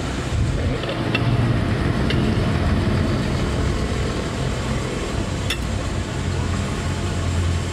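Low steady engine hum from motor traffic, its pitch shifting now and then, with a few light clinks of cutlery on plates.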